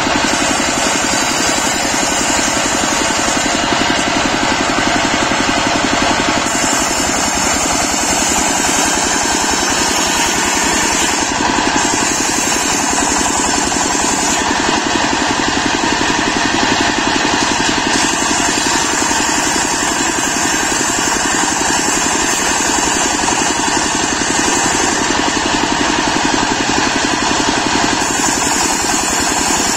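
A circular saw blade on a trailer-mounted sawmill rips teak slabs into planks, driven by the sawmill's engine running steadily. The high cutting noise comes and goes a few times as slabs are fed through and pulled back.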